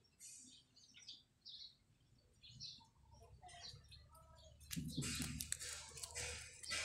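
Small birds chirping now and then in the background. About five seconds in, louder rustling noises come up close as a dog brushes past the phone.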